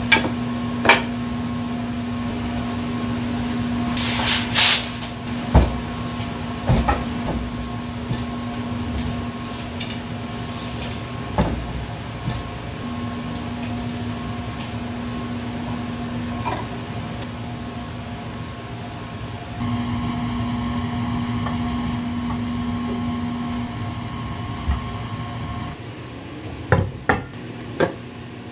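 Wooden cutting-board strips and bar clamps being handled on a workbench, giving scattered sharp knocks and clacks, several close together around four to seven seconds in and again near the end, over a steady machine hum.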